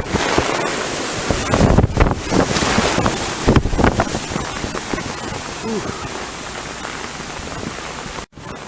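Hurricane-force wind rushing and gusting, buffeting the microphone; the gusts are strongest in the first half and ease off later.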